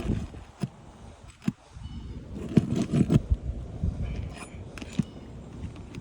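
Knocks and scraping on asphalt roof shingles as a roof snake is worked under them to break the seals, in scattered strikes with a tight cluster a few seconds in, over a low rumble.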